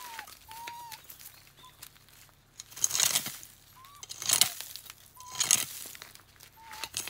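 Rustling and crinkling in three loud bursts, with short high whines between them that fall in pitch: a dog whimpering.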